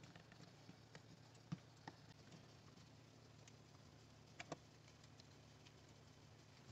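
Near silence with a few small plastic clicks and taps from handling a car trunk lamp housing and unplugging its wiring connector: single clicks about a second and a half and two seconds in, and a quick double click about four and a half seconds in.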